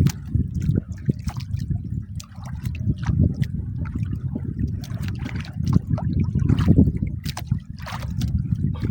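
Water sloshing and lapping against the hull of a small boat, over a steady low rumble, with scattered sharp clicks and small splashes.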